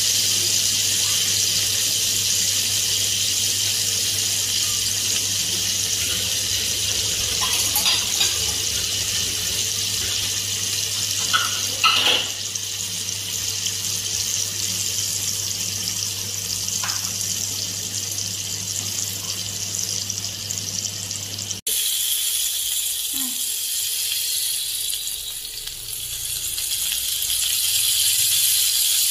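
Salmon steak sizzling in hot fat on a grill pan: a steady high hiss with a few short pops and crackles. A low hum underneath stops abruptly about two-thirds of the way through.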